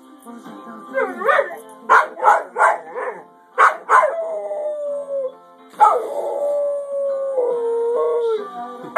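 Dog howling along to music: a few short yips and barks, then two long howls, each sliding slowly down in pitch.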